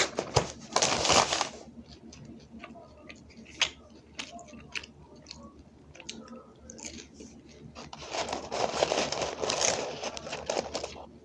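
A person chewing and biting fast food close to the microphone, with crunchy bites and mouth clicks. Near the end there is a longer stretch of paper rustling as a hand goes into the cardboard fries carton.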